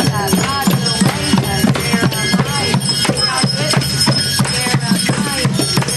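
A group of children drumming and playing percussion together in a loose, busy, unsynchronised rhythm, with wavering high notes over the top.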